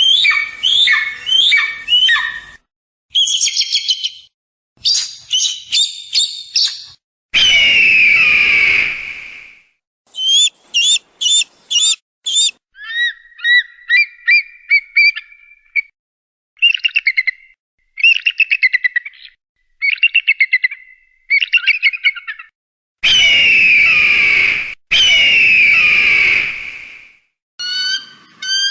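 A string of eagle calls in separate short recordings: quick runs of high, piping, chattering notes, and three long, harsh screams, one near the start and two in a row near the end.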